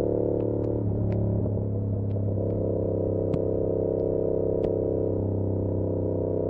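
2022 Yamaha R7's 689 cc parallel-twin engine running through an SC-Project CR-T exhaust at a steady cruise, picked up by a recorder inside the rider's backpack; its pitch wavers briefly about a second in, then holds steady. Sharp, irregular ticks over it come from the backpack's straps slapping against the bag.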